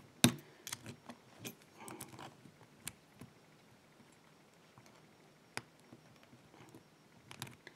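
Small metal clicks and scrapes of screwdrivers working the retaining clip off a half Euro lock cylinder, busiest in the first three seconds, then a long quiet stretch with one sharp click a little past halfway.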